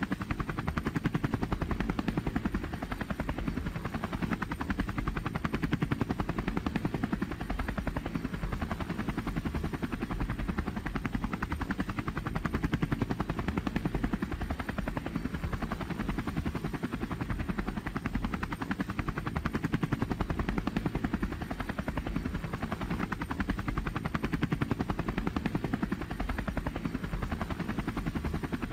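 Light helicopter in flight, heard from inside the cabin: steady engine and rotor noise with a fast, even chop of the rotor blades.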